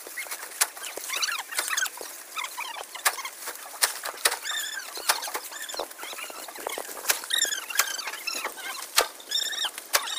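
Dry sugarcane stalks cracking and rustling as bundles are dropped onto a trolley and trodden on, with short high chirping calls in the background.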